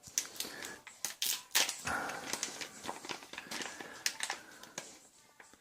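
Plastic packaging crinkling and rustling with a run of sharp clicks as it is handled.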